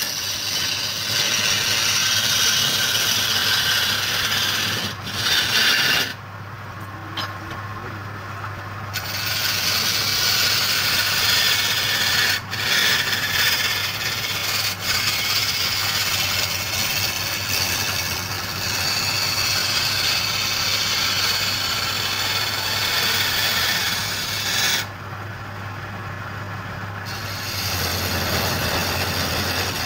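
Wood lathe spinning a wooden blank while a hand-held turning tool cuts it, giving a continuous rasping scrape of shavings over a steady low hum. The cutting eases off twice for a few seconds.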